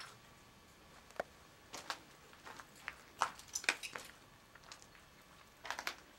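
Footsteps crunching and scuffing on a gritty, debris-strewn floor, irregular steps with a few sharper clicks.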